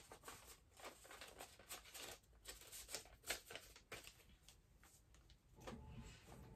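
Faint paper rustling and crinkling with small irregular clicks as a greeting card and its envelope are handled.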